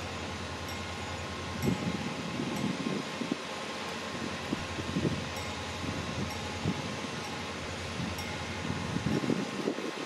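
East German WSSB level crossing warning bell ringing steadily, with gusts of wind buffeting the microphone now and then.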